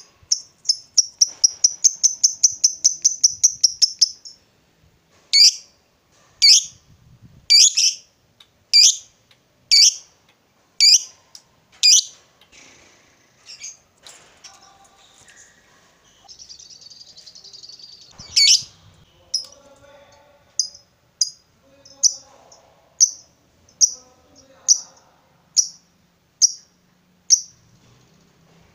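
Lovebird calling: a fast chattering trill of high chirps for about three seconds, then single shrill chirps about once a second, and near the end a run of quicker chirps.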